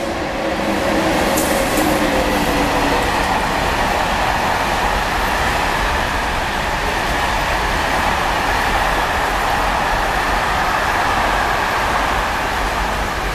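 Freight train of covered wagons running through the station at speed: a loud, steady rush and rumble of wheels on rails. A hum that falls slightly in pitch sits on top for the first three seconds or so.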